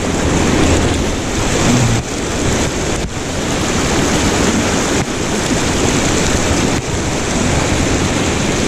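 Steady, loud rush of flowing creek water.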